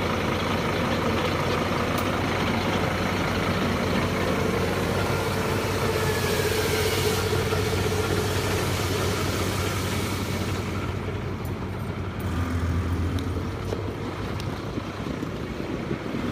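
Fire engine's pump and engine running steadily with a constant low hum, pumping water into a hose at about 3 bar.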